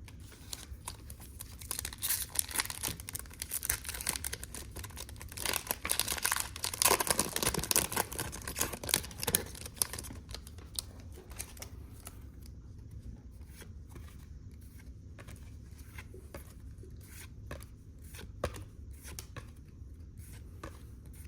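Foil wrapper of a football trading-card pack torn open and crinkled for several seconds, followed by faint clicks and slides of the cards being flipped through one by one.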